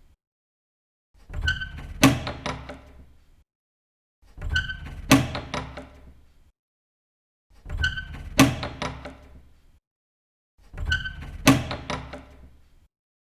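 A door opening and shutting with a sharp clack, the same take repeated four times about three seconds apart. Each time a few small clicks lead up to one loud bang and a short fading rattle.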